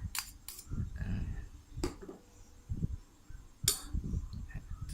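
Scattered clinks and knocks of kitchen utensils against a bowl, with a sharper click just before two seconds in and another near four seconds.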